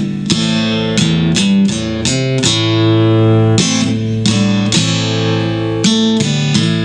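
Acoustic guitar playing a slow blues instrumental passage, picked notes and chords ringing one after another.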